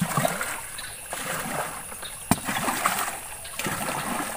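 Water splashing and sloshing as a plastic-bottle raft is paddled by hand across a pond, in irregular small surges, with one sharp click about two seconds in.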